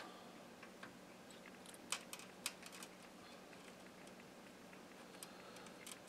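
Faint scattered clicks and ticks from desoldering work, with braid and tweezers pressed against a soldering iron tip on a circuit board joint, over a steady faint hum. The ticks bunch up about two seconds in and are otherwise sparse.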